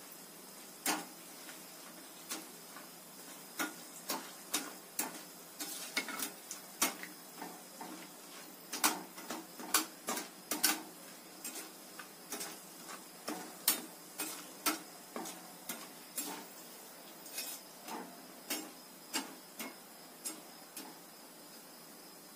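Metal utensil clicking and tapping irregularly against a wire mesh frying basket as dried coconut slices are stirred in hot oil, over a faint steady hiss of oil frying. The taps start about a second in and stop about a second before the end, some much louder than others.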